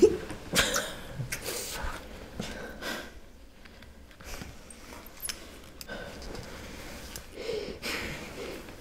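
Soft breaths and sighs from people close together, in short puffs a second or two apart.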